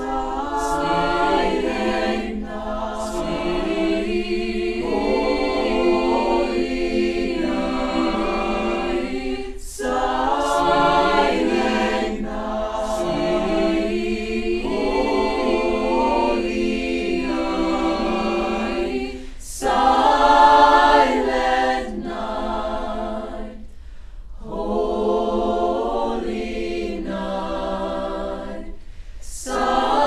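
Mixed student choir singing a cappella, in long phrases with short breaks between them.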